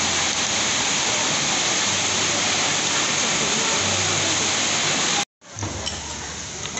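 Heavy rain, a loud steady hiss, that cuts off abruptly about five seconds in. A quieter background with a few faint clicks follows.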